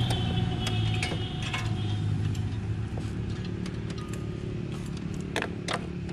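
Scattered sharp clicks and taps of a handheld digital multimeter being handled, its rotary selector turned and its test leads fitted, over a steady low mechanical hum.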